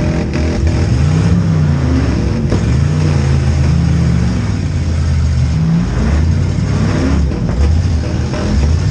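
V8 engines of demolition derby cars revving, their pitch rising and falling again and again as the cars accelerate and back off, with a few sharp knocks among them.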